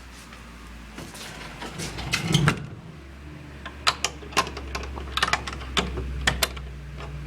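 Irregular knocks and clicks, unevenly spaced and more frequent in the second half, over a steady low hum.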